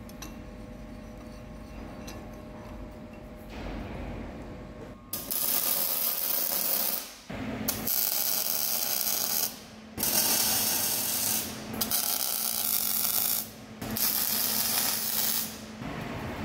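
Arc welder laying short stitch welds: five bursts of crackling arc noise, each about one and a half to two seconds long with brief pauses between, starting about five seconds in. A steady low hum runs underneath.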